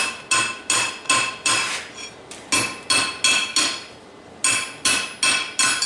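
Hand hammer striking steel on an anvil, each blow ringing with a metallic tone. Quick blows come about three a second in three short runs, with brief pauses between, while the eye of a forged chain repair link is being shaped.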